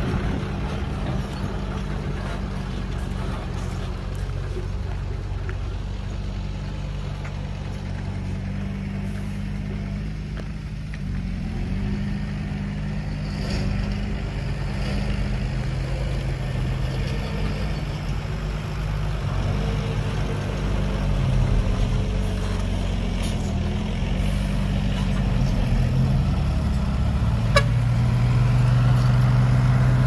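Heavy diesel engine of construction machinery running steadily, its pitch shifting now and then and getting louder toward the end, with a couple of sharp clicks near the end.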